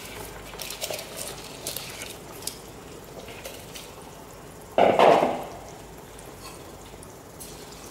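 Rice grains tipped from a plastic bowl into a pot of boiling biryani liquid, with light pattering and clinks over the steady bubbling of the pot. One louder clatter of kitchenware about five seconds in.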